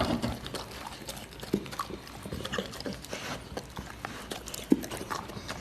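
A dog eating: irregular small clicks and snuffles of chewing.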